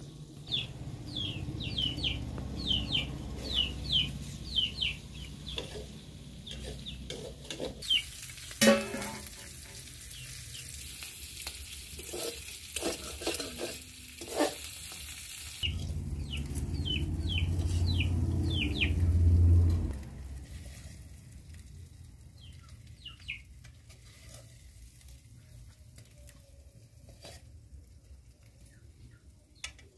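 Eel pieces frying in a metal pan over a wood fire: a sizzle, with a metal spatula stirring and clicking against the pan. Runs of short, falling high chirps sound before and after the sizzle, over a low rumble that comes and goes.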